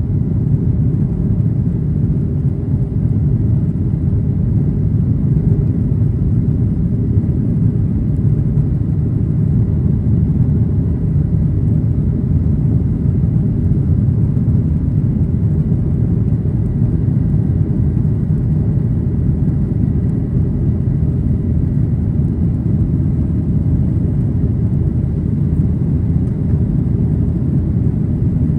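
Steady low rumble of a Boeing 737-800's CFM56 engines and airflow heard inside the passenger cabin, with a faint steady high whine.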